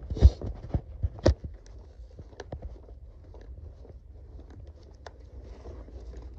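Handling noise and footsteps from someone walking with a handheld phone: a few sharp clicks and knocks in the first second and a half, then fainter ticks and rustling over a low steady rumble.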